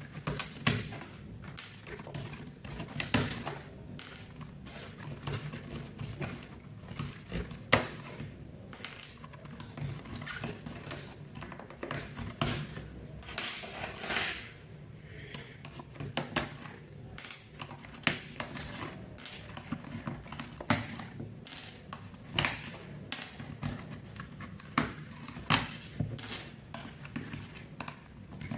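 Plastic keycaps of a mechanical keyboard clicking and clattering at irregular intervals as they are pried off and handled, over a faint steady low hum.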